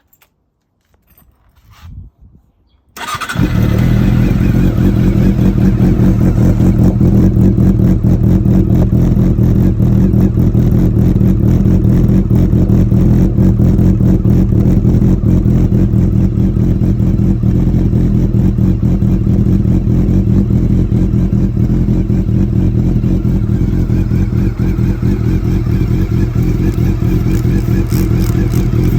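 Honda CB400 Super Bore's inline-four engine starting about three seconds in, then idling steadily through an aftermarket slip-on silencer.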